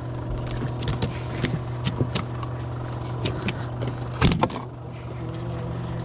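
Boat engine idling steadily, with scattered light clicks and rattles of fishing gear and one louder knock about four seconds in.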